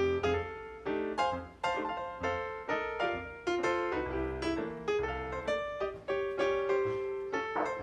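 Background music: a piano playing a light melody, notes struck at an even, lilting pace.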